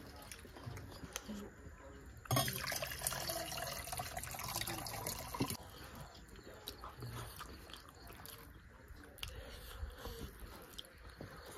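Wet eating sounds of curry and rice eaten by hand: chewing, lip-smacking and fingers squishing the food, with a louder, noisier stretch from about two to five and a half seconds in.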